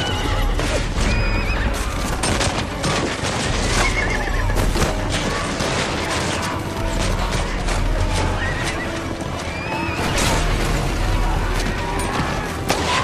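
Horses whinnying and galloping in a cavalry charge, mixed with many sharp rifle shots and men shouting, over music.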